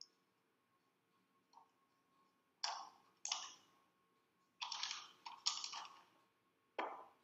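Typing on a computer keyboard: a couple of single keystrokes, then a quick run of several, then one more.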